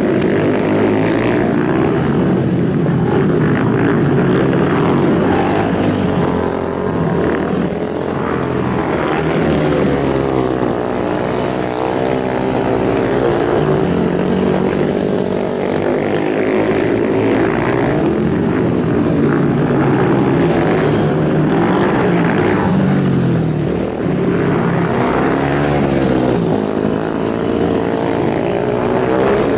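Motorcycle engines running at high revs, several overlapping engine notes whose pitch keeps rising and falling.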